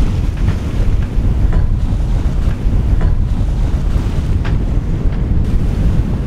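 Strong wind buffeting the microphone in a steady low rumble, over a rush of sea water, with a few faint ticks.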